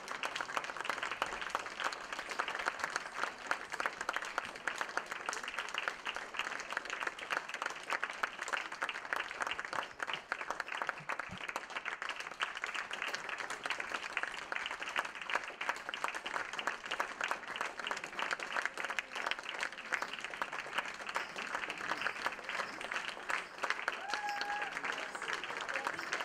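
Audience applauding steadily: dense, continuous clapping of a concert crowd. A voice briefly calls out above it near the end.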